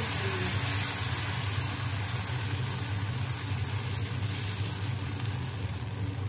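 Dosa batter sizzling on a hot oiled tawa as a steel ladle spreads it, over a steady low hum.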